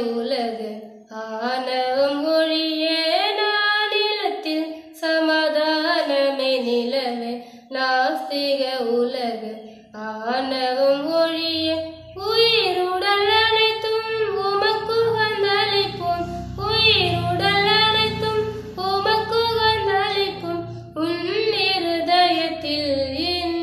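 A woman singing solo without accompaniment, phrase after phrase with short pauses for breath.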